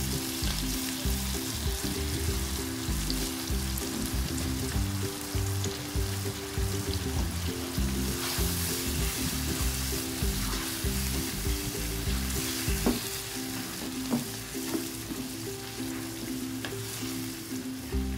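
Masala with yogurt sizzling in a non-stick wok while a slotted spatula stirs it through.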